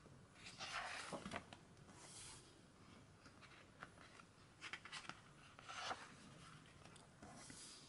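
Pages of a large hardcover photobook being turned by hand: soft paper rustling and sliding in several short bursts, about four page turns.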